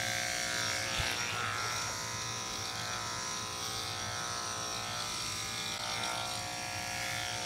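Wahl KM10 electric dog clipper running with a steady, even hum.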